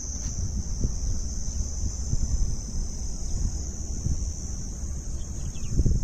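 A steady, high-pitched chorus of insects, over a low, uneven rumble of wind on the microphone.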